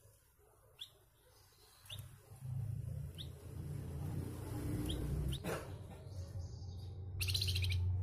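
Caged flamboyan songbird giving short, sharp chirps about once a second, then a loud harsh, rasping trill near the end: the rough call prized in this bird. A low steady hum runs underneath from about two seconds in.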